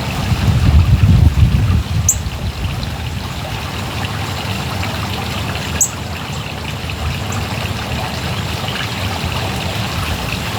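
Yard water fountain trickling and splashing steadily. A heavy low rumble on the microphone fills the first couple of seconds, and two short high chirps come about 2 and 6 seconds in.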